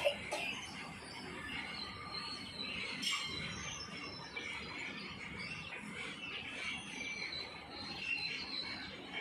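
Small birds chirping: many short, overlapping calls over a low steady background rumble.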